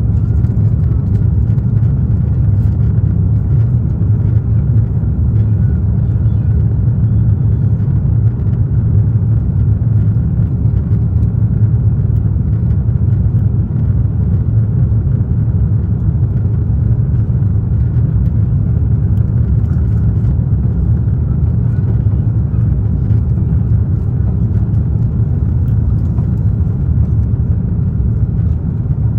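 Airbus A330-300 cabin noise on final approach with the flaps extended: a loud, steady, deep rumble of engines and airflow, with a faint steady whine above it.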